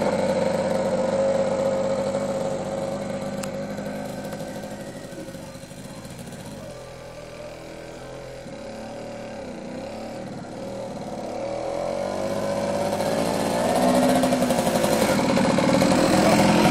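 Homemade go-kart's Tomos two-stroke moped engine running at a steady pitch. It fades as the kart drives away, is faint around the middle, and grows loud again as the kart comes back close.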